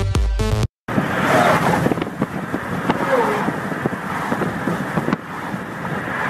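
Wind buffeting the microphone and road noise from a car moving at speed with a window open. A snatch of electronic music cuts off just under a second in.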